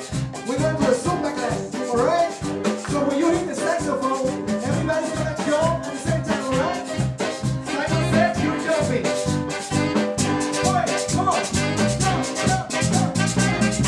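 Live band playing Latin dance music, with horns and hand drums over a steady, even beat.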